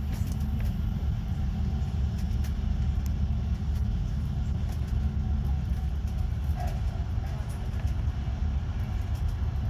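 Regional passenger train running at speed, heard from inside the carriage: a steady low rumble.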